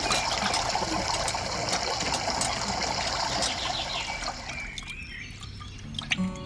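Water trickling and splashing steadily, fading away about five seconds in.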